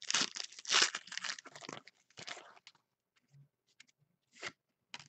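Trading-card pack wrapper crinkling and tearing in the hands: dense crackling for the first two and a half seconds, then a few scattered crackles.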